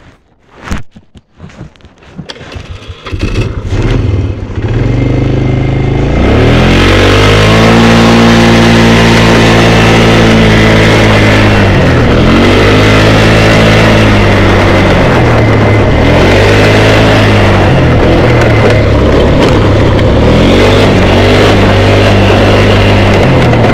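ATV engine revving hard under acceleration, its pitch climbing and easing back several times in long swells. It starts quietly with a few knocks and grows loud about six seconds in.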